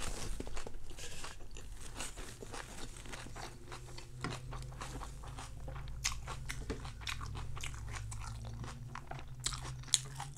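Close-up crunching and chewing of crispy rice pancake (bánh xèo) wrapped with fresh vegetables, many sharp crisp crunches in an irregular run.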